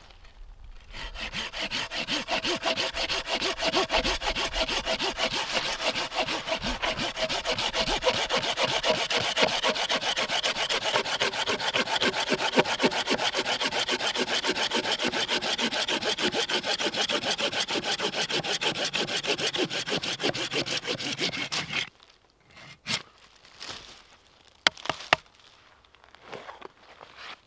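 Hand saw cutting through wood in quick, even back-and-forth strokes for about twenty seconds, stopping abruptly, followed by a few light knocks.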